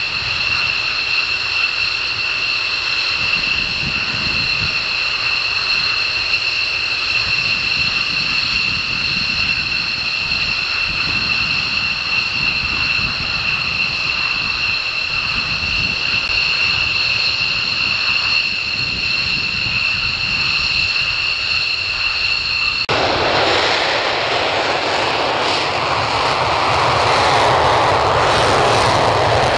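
Royal Netherlands Air Force F-16 Fighting Falcon jet engines (Pratt & Whitney F100 turbofans) running at taxi power, a steady high whine in two tones over a low rumble. About 23 seconds in, the sound switches suddenly to an F-16's afterburner take-off run: a loud rushing roar that swells near the end.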